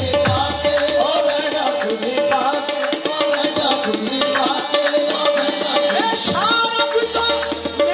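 Qawwali music: harmoniums playing a melody over a steady drone, with a hand drum beating a fast rhythm.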